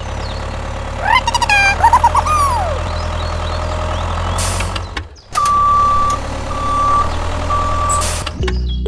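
Vehicle engine running with a steady low hum, with high squeaky gliding tones early on. After a brief drop-out about five seconds in, a reversing alarm beeps three times at one pitch.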